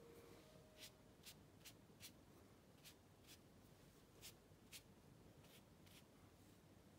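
Faint ink brush dabbing and stroking on paper: about ten short, soft swishes at an uneven pace.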